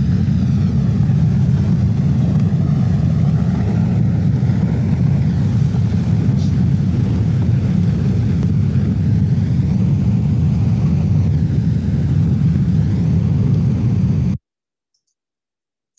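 Small lahar (volcanic mudflow) rushing down a rocky channel: a loud, steady, deep rumble of flowing mud, water and tumbling boulders, cutting off abruptly near the end.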